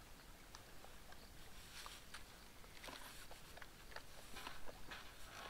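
Quiet ambience with faint, scattered small ticks and clicks at irregular intervals.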